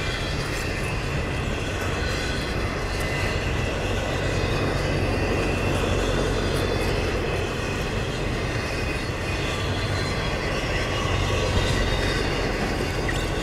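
Cars of a CSX double-stack intermodal freight train rolling past: a steady noise of steel wheels running on the rails.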